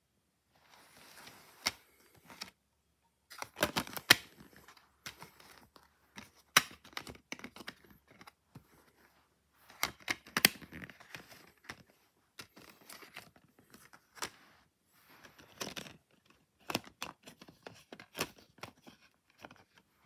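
Clear plastic multi-disc DVD case and its discs being handled: an irregular run of sharp plastic clicks and rustling, with the loudest snaps about four and ten seconds in.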